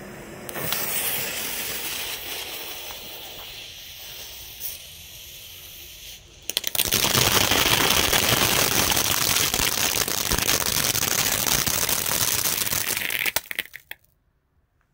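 Weco White Pine Flower youth firework fountain: the lit fuse sputters with a quieter hiss for about six seconds. Then the fountain catches and sprays with a loud, steady hiss and crackle for about seven seconds, stopping abruptly near the end.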